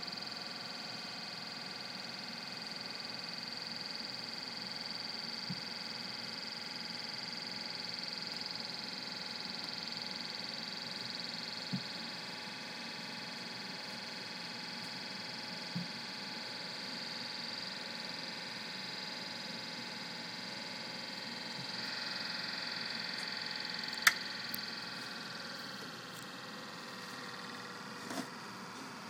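Spin-art machine's electric motor running steadily as it spins a frisbee: a constant whirring hum with a high whine and several steady tones, its pitch sagging a little near the end. A few sharp ticks sound over it, the loudest about two-thirds of the way through.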